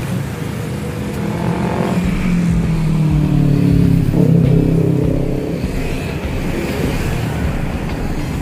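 Road traffic passing on a busy street: a vehicle's engine note swells, rises and then falls as it goes by, loudest about four seconds in, over a steady rumble of traffic.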